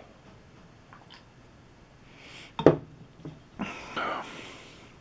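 Pull-tab of a Victor Allen's Twix iced coffee can snapped open with one sharp crack about halfway through, followed by a couple of softer clicks and a short hiss.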